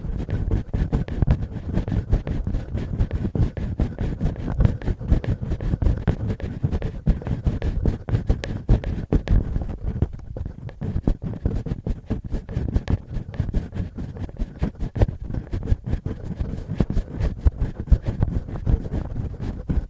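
Fingertips and fingernails scratching and rubbing directly on the microphone as mock ear cleaning: a dense, continuous run of quick scratching strokes.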